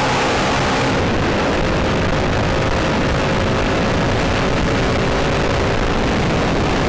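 Motorcycle engines running steadily together, a constant loud engine drone with wind noise.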